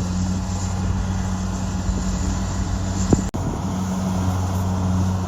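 Road vehicle driving along, its engine a steady low hum under road and tyre noise, with a brief break about three seconds in.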